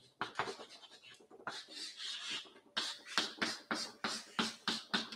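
Chalk scratching on a chalkboard: short writing strokes, then a longer drawn line, then a quick run of strokes, about four a second, as a box is shaded in with hatching.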